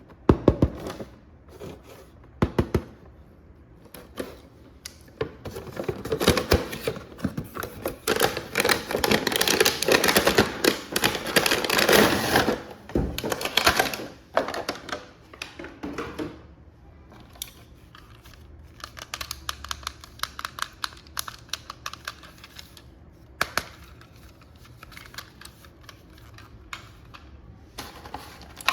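Rapid, dense clicking and rattling, thickest and loudest from about six to fourteen seconds in, then thinning to scattered clicks.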